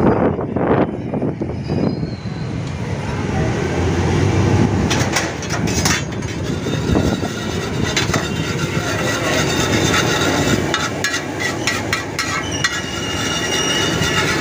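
Metal spatula scraping and tapping on a large flat griddle (tawa), stirring chopped onion and chillies, with repeated scrapes and clicks from about a third of the way in. Under it, a steady dense rumble.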